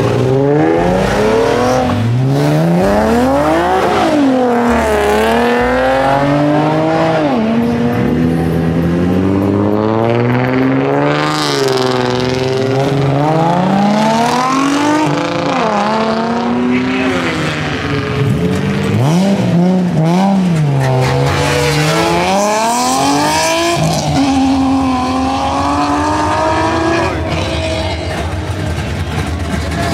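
A car drifting in circles, its engine revving up and falling back again and again, with tires squealing on the asphalt.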